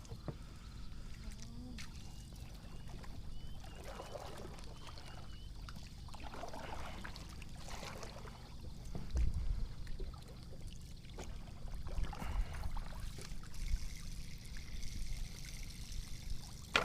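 Water trickling and splashing unevenly, with a few low rumbles about nine and twelve seconds in.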